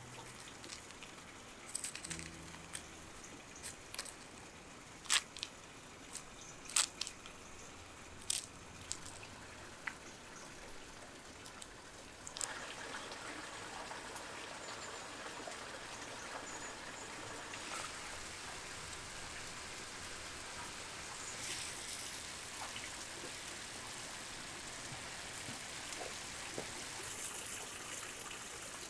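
Scattered sharp taps and clicks of food being handled and cut on a wooden table, about six loud ones in the first twelve seconds, then a steady trickling hiss takes over.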